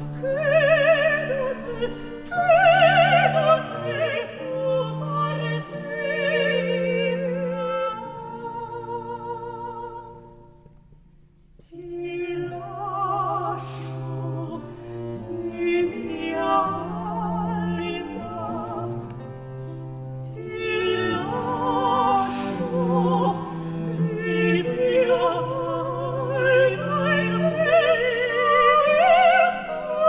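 Classical singing with wide vibrato, a slow song in operatic style, over bowed strings holding low sustained bass notes. The music fades almost to nothing about ten seconds in, then resumes.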